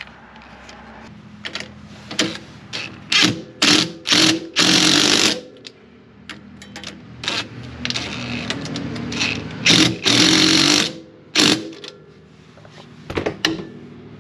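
Cordless impact driver hammering a bolt in: a few short bursts, then two longer runs of about a second each, driving home the bolt that mounts an ice scratcher to a snowmobile's skid rail. Quieter clinks of metal parts being handled between the runs.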